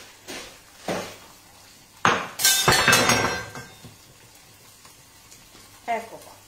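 Dishes and utensils clattering on a kitchen counter, with a short knock about a second in and a loud stretch of clatter lasting about a second and a half from two seconds in, over a faint sizzle of salmon cooking in a grill pan.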